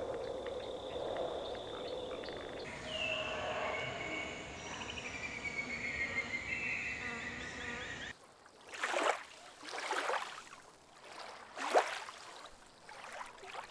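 Outdoor wildlife ambience: a steady insect-like drone, with chirping calls running through the middle. After a sudden change about eight seconds in, it turns quieter, with a few short, louder rushes of sound.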